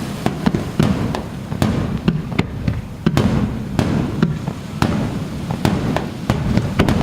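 Aerial fireworks going off in a rapid string of sharp bangs and crackles, several a second, over a steady low rumble.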